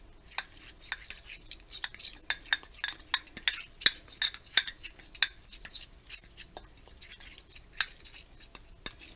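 Metal fork stirring a powder-and-water mix in a ceramic bowl, clinking against the bowl in quick irregular taps. The taps come thickest through the first half and thin out toward the end.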